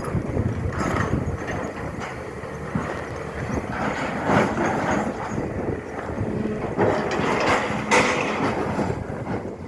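SANY excavator running under load, its engine rumbling steadily. Several rough scraping, clattering bursts come through as the bucket digs.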